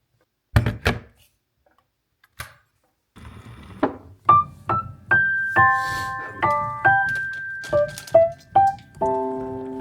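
A couple of sharp thunks, then piano music from about three seconds in: single notes that ring on, building to chords near the end.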